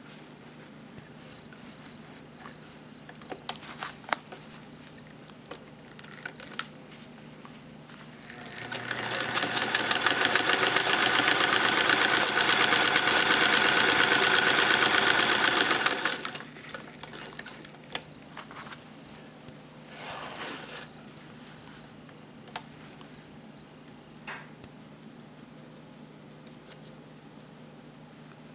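93-year-old Singer 128K sewing machine stitching a seam: a fast, even run of needle strokes for about seven seconds in the middle, stopping suddenly. A few isolated clicks come before and after the run.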